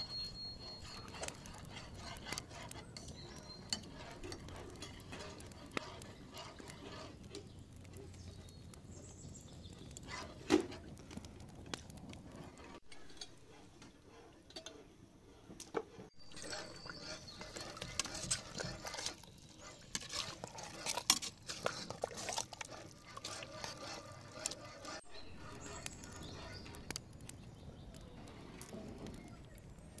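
Scattered clinks and knocks of metal cooking pots and utensils at a wood-fired stove, with many small clicks between them.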